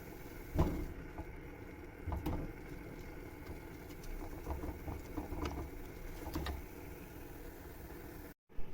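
Scattered light knocks and taps from kitchen work over a low steady hum, cutting out briefly near the end.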